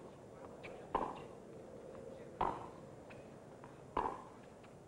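Tennis ball struck by racquets during a rally: three sharp hits about a second and a half apart, with fainter ticks between them.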